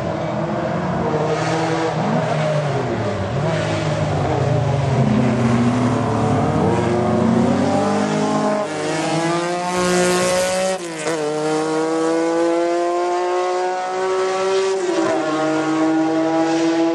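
Historic rally cars, among them a Lancia Stratos, driven flat out: engines revving hard and climbing in pitch, with sharp dips and climbs about two-thirds of the way in and again near the end as they shift up through the gears.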